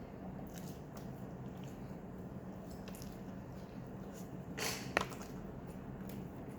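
Quiet eating sounds: a person chewing and handling food over a low steady hum, with a short rustle and a sharp click about four and a half to five seconds in.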